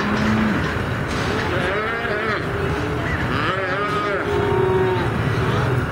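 Calves bawling in a branding pen: several drawn-out calls, one about two seconds in and a run of calls from about three and a half to five seconds in, over a steady low rumble.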